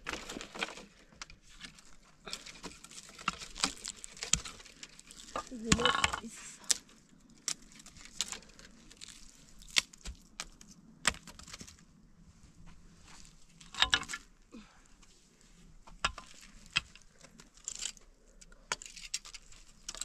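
Dry branches and twigs snapping, with footsteps crunching on loose stones. The cracks come irregularly, the sharpest about six and fourteen seconds in.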